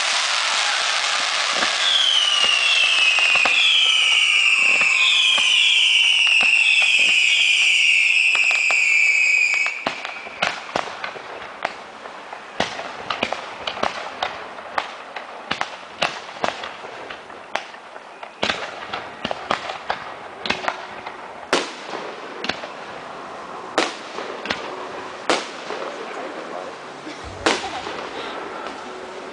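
Fireworks going off. For about the first ten seconds there is a dense, loud crackling hiss with a string of falling whistles. Then it drops to separate sharp bangs and pops, roughly one or two a second.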